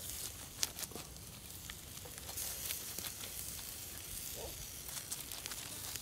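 Sizzling and crackling from a chicken roasting on a spit over hot charcoal embers, as basting sauce is brushed on, with a scatter of sharp pops over a steady hiss.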